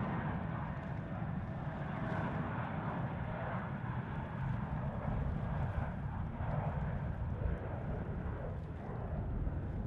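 Airbus A320 jet airliner taking off under takeoff thrust: a steady, deep engine rumble as it accelerates down the runway and lifts off.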